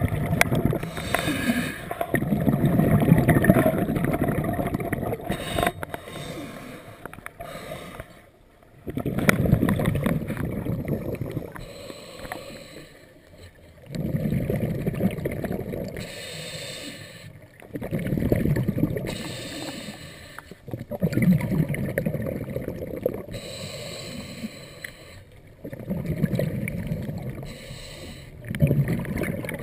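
A scuba diver breathing through a regulator underwater: repeated bursts of exhaled bubbles rumbling, about every four to five seconds, with quieter stretches between breaths.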